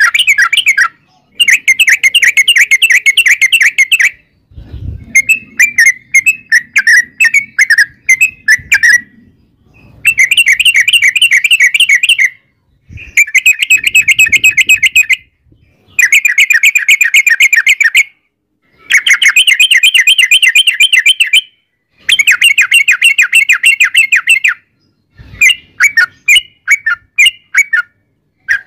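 Yellow-vented bulbul (trucukan) singing long rapid trills: runs of fast, evenly repeated notes, each run a couple of seconds long with short pauses between, and a few looser chattering phrases mixed in. A couple of brief low thumps sound under the song, once early and once near the end.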